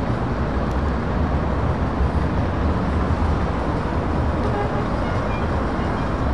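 Diesel engines of a slow-moving line of heavy trucks, led by a Scania tractor unit, running at low speed: a steady low rumble.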